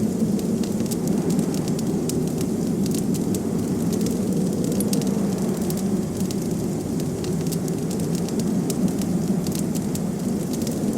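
Wood fire crackling in a fireplace, with frequent small sharp pops and snaps over a steady low rush of blizzard wind.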